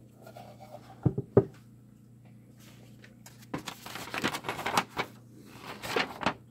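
Two quick knocks of a small box being handled on a wooden bench about a second in, then a few seconds of crackly paper rustling as a folded letter is pulled out and unfolded.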